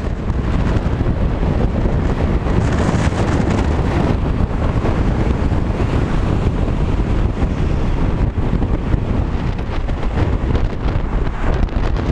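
Heavy wind buffeting on the microphone of a camera mounted on the outside of a car driving at motorway speed, a steady loud rush with no let-up.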